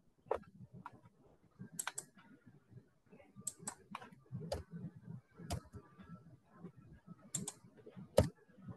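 Computer keyboard typing heard through a video-call microphone: irregular sharp key clicks in small clusters, with one louder click near the end.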